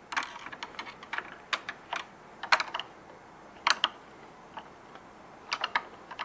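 Irregular light clicks and taps from hands and a screwdriver handling the sheet-metal chassis and mechanism of a Sony UP-DR80MD video printer.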